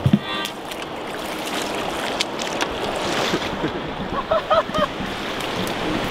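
Steady rush of river water with wind noise on the microphone. There is a thump right at the start, and a few short voice-like sounds about four seconds in.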